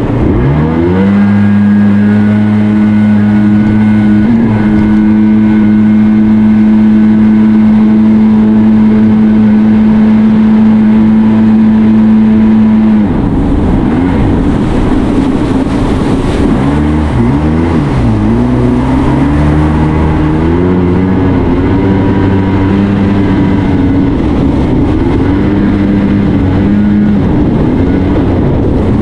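Watercraft engine at speed, heard close: it revs up about half a second in, holds a steady high pitch at full throttle until about 13 seconds, then rises and falls as the throttle is worked.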